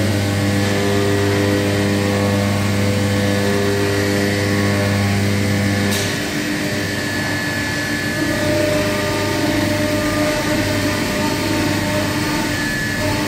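Haas CNC milling machine running a cutting program: a steady machine hum made of several held tones. About six seconds in a click is heard and the tones shift to a different, higher set, as the machine changes its motion.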